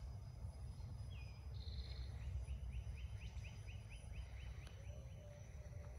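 A steady low outdoor rumble, with a small bird trilling a quick run of chirps, about five a second, in the middle. Near the end the faint whine of the E-flite A-10's electric ducted fans comes back from a distance.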